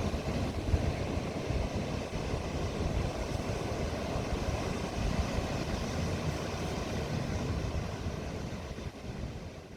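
Steady low rumbling outdoor noise, fading out near the end.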